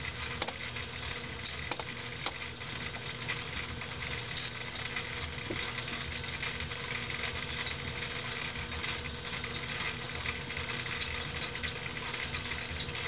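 Steady machine-like hum and hiss, with a few faint clicks in the first few seconds.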